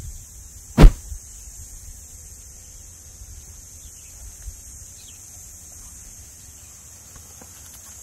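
A single sharp knock about a second in, over a steady faint high hiss, with a few faint small clicks and rustles near the end.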